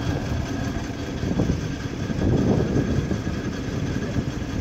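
Engine of well-drilling machinery running steadily.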